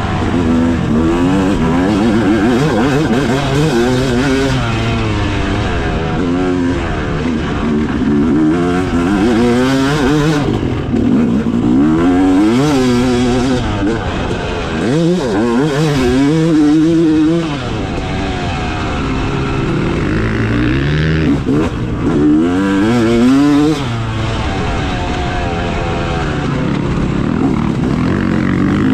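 Yamaha YZ250 two-stroke motocross bike engine revving up and dropping back over and over as it is ridden around a dirt track, the pitch climbing and falling every second or two.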